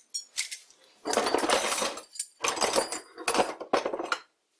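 Loose steel parts and rods clattering and clinking against each other as they are handled and shifted in a box, in several bursts of rattling with a metallic ring.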